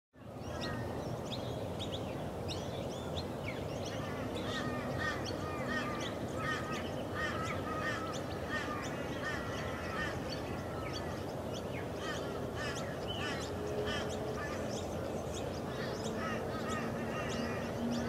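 Birds calling in a wetland: many short, quick chirps and whistles, some repeated in rows, over a steady background hiss, with a few longer low steady tones.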